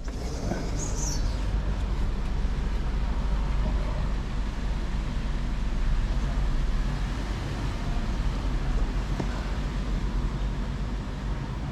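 Steady street traffic noise, a constant low rumble of vehicles.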